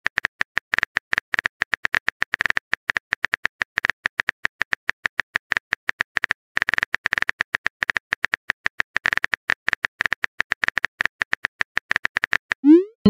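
Rapid, irregular clicking of a phone keyboard typing sound effect, several clicks a second, with a brief pause about six seconds in.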